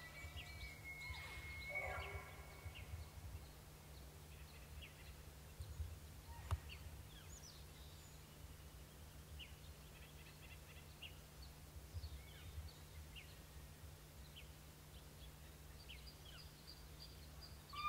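Quiet pine-forest ambience: faint, scattered small-bird chirps over a low steady hum. A high drawn-out whistle fades out about two seconds in, and a single sharp click comes a little past the middle.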